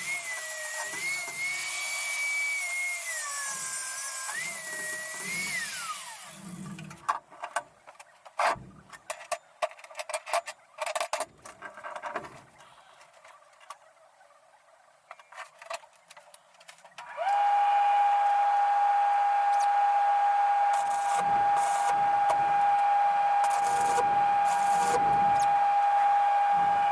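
A power tool's electric motor whining at a wavering pitch, then spinning down. A stretch of scattered clicks and knocks follows, then about two-thirds of the way in a motor starts and runs at a steady, high pitch.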